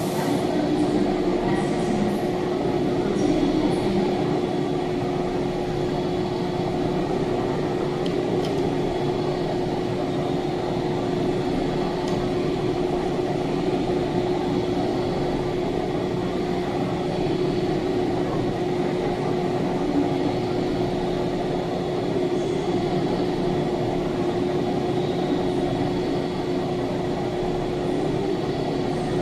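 Electric train standing at a station platform, its onboard machinery giving a steady hum with one constant tone.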